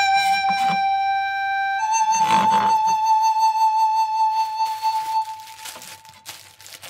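Background music on a flute, playing long held notes: one note gives way to a slightly higher one about two seconds in, which is held and then fades out near the end. A few brief knocks and rustles sound under it.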